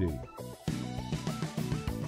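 Background music with guitar and drums; it drops away briefly about half a second in and comes back in a steady beat.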